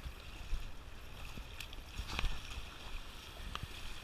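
Shallow sea water splashing and lapping, with wind rumbling on the microphone; a few short sharp splashes, the strongest about two seconds in.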